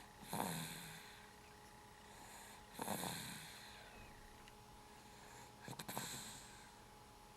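Someone asleep snoring: three snores, about two and a half to three seconds apart, each lasting under a second, with quieter breathing between them.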